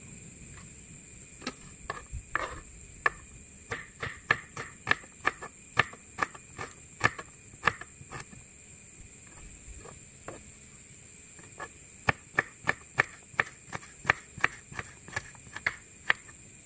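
Kitchen knife slicing garlic cloves on a plastic cutting board, the blade tapping the board about three times a second in two runs with a pause in the middle.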